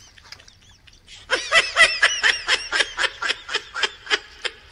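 A person laughing hard in rapid, high-pitched bursts of about five a second, starting about a second in.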